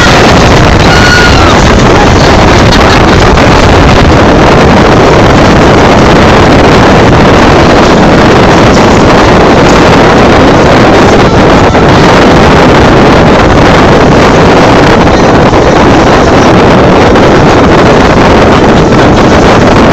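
Moving boat: loud, steady wind noise on the microphone mixed with the boat's engine, without a break.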